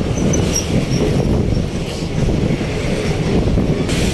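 Steady low rumble of a moving road vehicle's engine and road noise, heard from on board.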